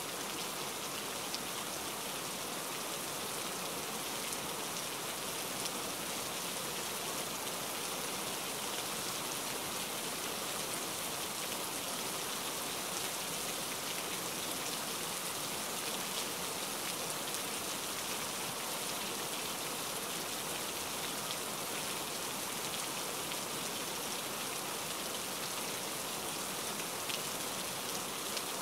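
Steady rain falling, an even hiss with scattered faint ticks of individual drops.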